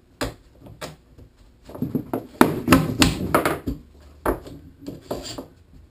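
White PVC plastic pipe and fittings handled and worked together by gloved hands: irregular plastic knocks and clicks, with a busier stretch of rubbing and knocking in the middle.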